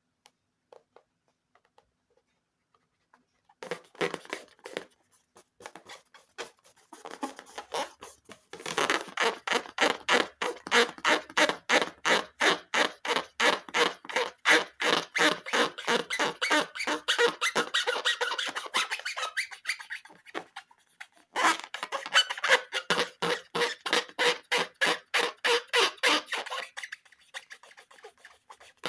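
Rapid rhythmic rubbing and squeaking of balloons and slime being worked by hand, about five strokes a second. It starts about four seconds in, fades briefly around twenty seconds in, then picks up again.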